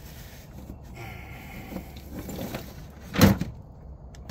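A single loud knock about three seconds in, over a low steady background.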